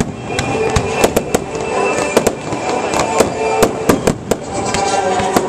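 Aerial fireworks bursting in quick succession: a dense string of sharp bangs and cracks, several a second.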